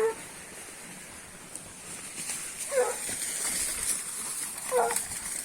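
Hunting dogs barking, three short barks about two seconds apart.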